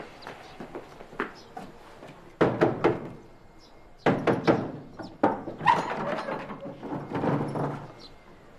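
Knocking on a heavy wooden gate, two rounds of several blows, about two and a half and four seconds in. A longer stretch of wooden clatter and scraping follows as the gate is unbarred and swung open.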